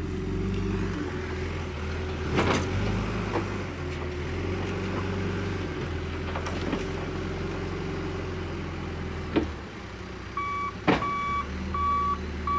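Grading machine's engine running steadily, with a few sharp knocks from the machine working the dirt. Near the end its reverse alarm starts beeping in short, evenly spaced beeps as it backs up.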